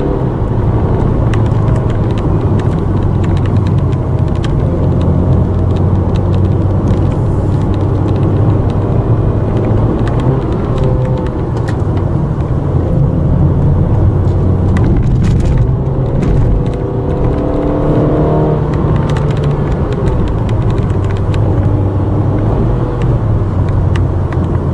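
Car engine and road noise heard from inside the cabin while driving, a steady hum whose pitch shifts up and down several times with speed and throttle.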